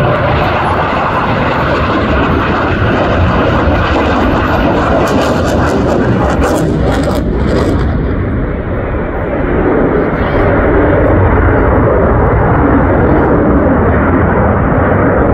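A CF-18 Hornet fighter's twin General Electric F404 jet engines heard during a low display pass: a loud, steady jet noise that dips slightly about nine seconds in, then swells again.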